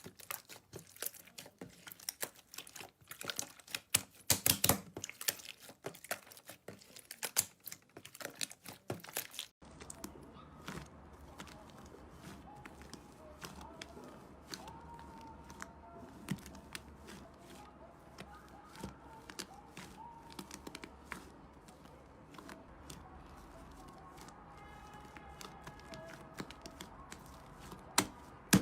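Hands playing with slime: dense crackling and popping for the first ten seconds or so, then, after an abrupt change, softer scattered clicks and squishes.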